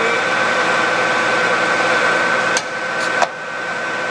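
Clausing Colchester 13" x 40" gearhead lathe running at 1030 RPM, a steady gear whine over the machine noise. About two and a half seconds in the whine cuts off and the sound drops, followed by two sharp clicks.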